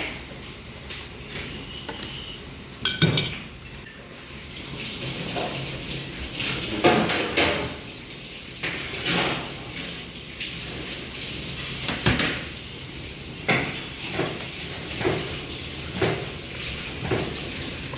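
Stainless-steel pans, trays and utensils clattering on a steel worktop, with one loud ringing clang about three seconds in. After that comes a steady hiss and a run of light knocks and taps.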